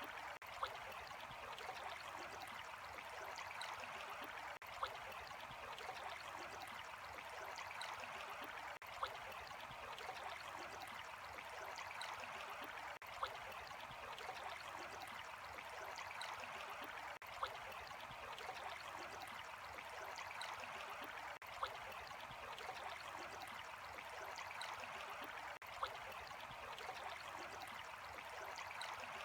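Running water flowing steadily, like a small stream. A short click about every four seconds.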